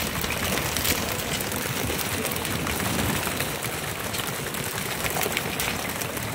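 Many small slaps and rattles over a steady rushing noise: a pile of freshly landed small tuna flapping on a plastic tarp on a fishing boat's deck.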